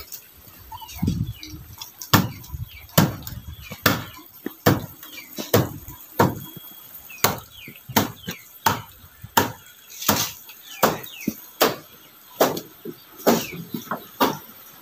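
Footsteps of a person walking at an even pace on a concrete and stone path, about one step every 0.8 seconds, with faint bird chirps between the steps.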